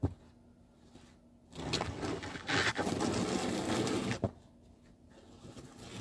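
Snow shovel scraping across snowy pavement: one long rough scrape for about two and a half seconds that ends in a knock, then a shorter scrape near the end.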